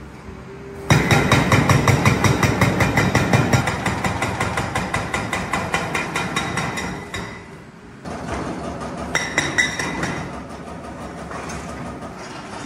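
Hydraulic breaker hammer on a Caterpillar 336F excavator pounding concrete, a rapid, even rattle of blows. It stops about seven seconds in and starts again a second later, quieter, with a brief louder flurry.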